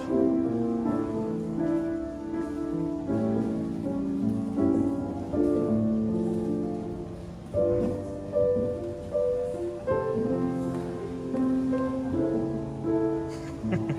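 Self-playing piano playing a slow tune of held chords, with new notes struck every second or so.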